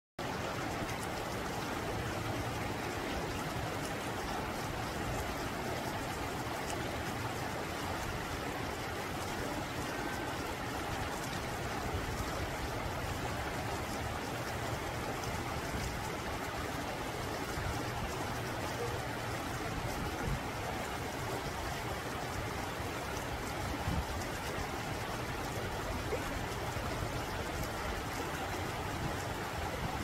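Shallow rocky mountain stream flowing over and between boulders: a steady rush of running water.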